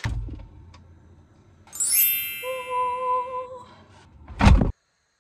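Editing sound effects: a low thud at the start, then about two seconds in a bright shimmering chime, a ding that rings on for a second or so over a wavering two-note tone, and a short thump near the end, after which the sound cuts out.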